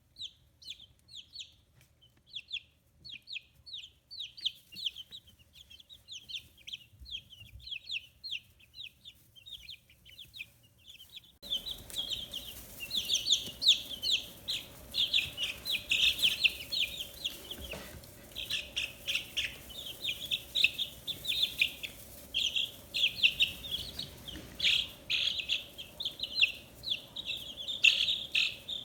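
A brood of 15-day-old chicks peeping constantly, many quick high chirps overlapping. About a third of the way in the peeping grows louder and a faint steady hum and hiss come in underneath.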